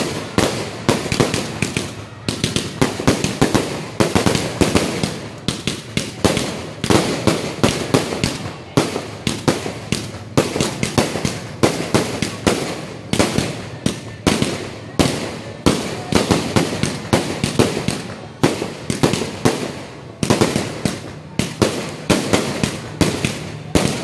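Fireworks bursting overhead in quick succession, a continuous string of sharp bangs about two or three a second.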